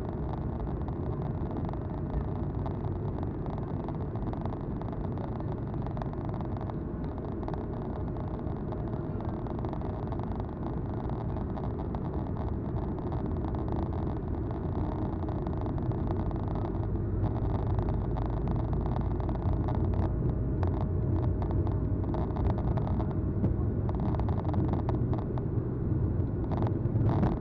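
In-cabin noise of an Airbus A220-300 taxiing, its Pratt & Whitney PW1500G geared turbofans at taxi power: a steady low rumble with a thin steady tone. It grows a little louder past the middle, and light clicks and knocks come in over the second half.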